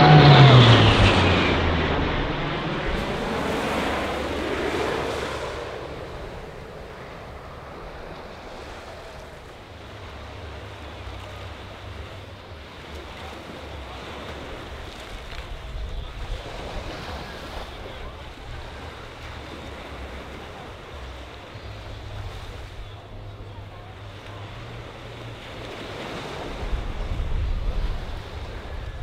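Four-engine turboprop C-130 Hercules 'Fat Albert' passing low overhead, its propeller drone dropping in pitch as it goes by and fading over the next few seconds. Then surf breaking and wind on the microphone, with the turboprop's drone growing louder again near the end as it comes back in low toward the beach.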